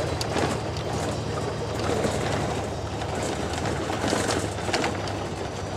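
Steady running noise heard from inside a moving vehicle, with a low engine drone that drops slightly in pitch about five seconds in.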